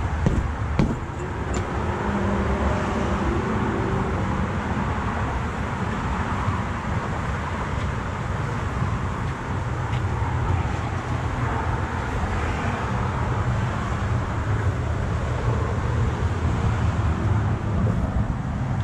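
Steady rumble of road traffic, with a few sharp knocks in the first second.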